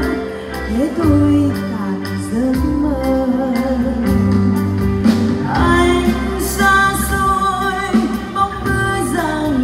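Live band music with a woman singing a Vietnamese ballad.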